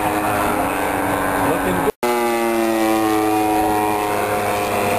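Engine and propeller of a radio-controlled scale Texan model airplane droning in flight, a steady pitched buzz. The sound cuts out for an instant about two seconds in, then returns with its pitch sliding slowly down.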